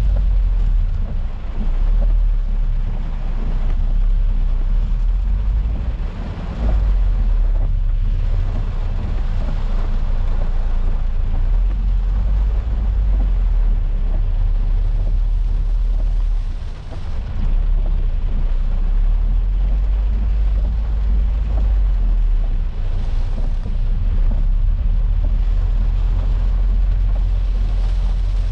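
Inside a Peugeot 406 saloon's cabin while driving through heavy rain: a steady low rumble of road and engine noise under a constant hiss of rain on the car.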